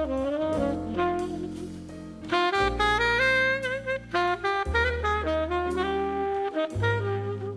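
Jazz ensemble playing an instrumental passage of a slow ballad: a saxophone carries a moving melodic line over sustained bass notes and the band.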